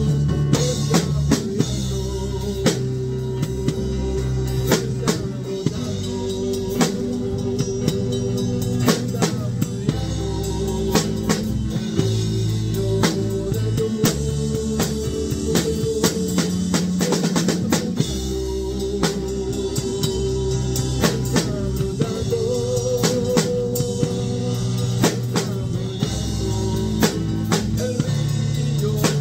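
Live band playing an instrumental passage: an acoustic drum kit with cymbals keeping a steady beat over long held bass notes and chords.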